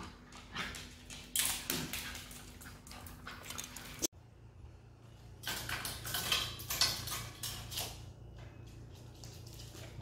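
White metal pet gate rattling, and its latch clicking, as a dog paws and noses at it, in a string of light metallic clinks and knocks.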